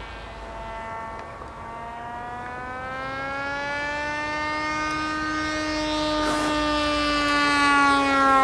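Motor of a Depron foam RC model F-22 Raptor whining in flight overhead, one steady pitched drone that grows louder as the model comes nearer. Its pitch rises slightly about three seconds in, then sinks slowly toward the end.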